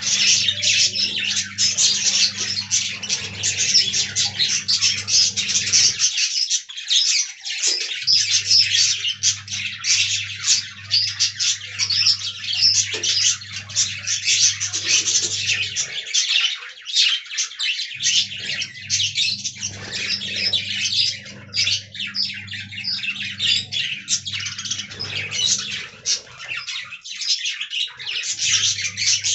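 A flock of budgerigars chirping and chattering continuously, many birds at once. Under them a low steady hum cuts out briefly about every ten seconds.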